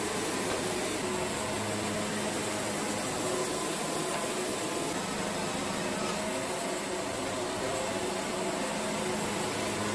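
Wood-Mizer LT70 band sawmill running steadily, its band blade sawing eastern red cedar logs.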